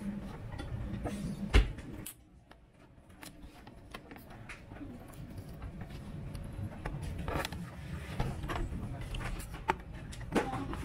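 Handling noise: scattered clicks and knocks over a low rumble, with one sharp knock about one and a half seconds in.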